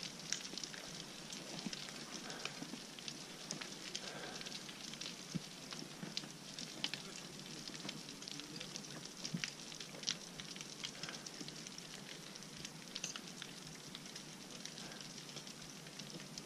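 Loose rocks falling down a steep scree gully: scattered irregular clicks and clatter over a steady hiss.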